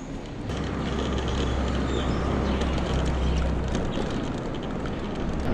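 Wind buffeting the handlebar-mounted microphone and road rumble from a moving scooter. The sound swells about half a second in as the scooter gets going, then stays steady.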